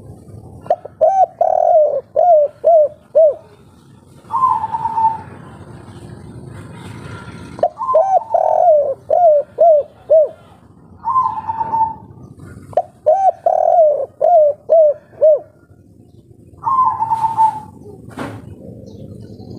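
Spotted dove (derkuku) singing its 'kuk 3' song: three phrases, each a quick run of about six short coos followed by a longer, higher coo. A single sharp click sounds near the end.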